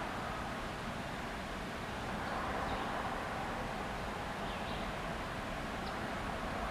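Steady outdoor background hiss, with a few faint, short, high chirps.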